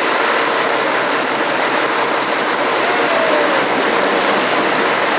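Steady rushing noise of a motorboat under way towing a board, its engine running and water spraying and hissing past.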